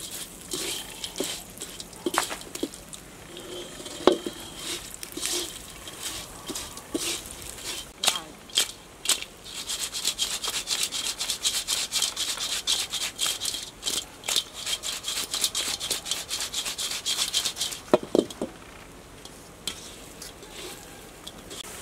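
Fried spiders being stirred and tossed in a metal wok with a sauce: a spatula scraping and clattering against the wok in quick repeated strokes, busiest through the middle and dying away near the end.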